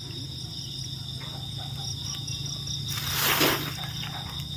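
Night chorus of crickets, a steady high trill, with a brief rustle in dry bamboo leaf litter about three seconds in.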